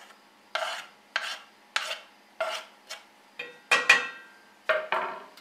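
A wooden spoon scraping minced garlic off a wooden cutting board into a stainless steel pot, in a run of short scrapes about every half second. The loudest stroke, about four seconds in, rings briefly.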